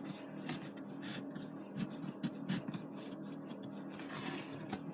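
A craft blade sawing and scraping through foam board: short scratchy strokes, with a longer rasping scrape about four seconds in.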